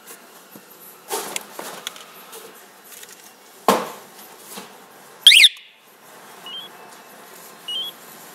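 Handling rustle and a knock as the alarm siren is set down, then one loud short chirp from the motorcycle alarm siren about five seconds in, signalling the system arming. Two short, quieter rising beeps follow from the two-way LCD remote pagers, confirming the lock.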